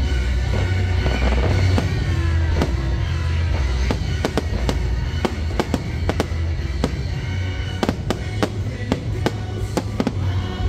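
A fireworks show: aerial shells bursting in quick succession, with sharp bangs and crackles that come thickest in the second half, over loud show music from outdoor speakers.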